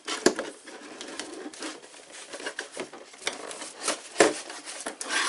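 Cardboard box being handled and its end flap pulled open: scraping and rustling of cardboard, with sharp knocks about a quarter second in and again about four seconds in.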